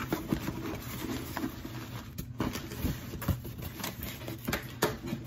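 Small cardboard advent-calendar box being handled and opened by hand: irregular rustling and scraping with light taps and clicks.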